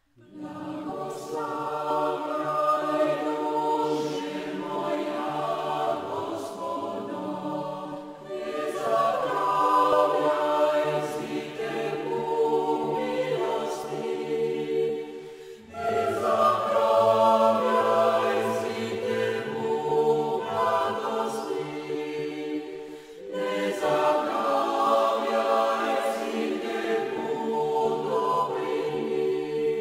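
Choir singing slow, sustained chords in four long phrases of about seven to eight seconds each, with short breaks between them.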